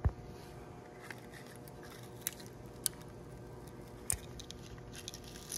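Handling noise from a worn, partly melted 3D-printed plastic brake pad being turned and picked at by hand: a few sharp clicks over a faint steady hum.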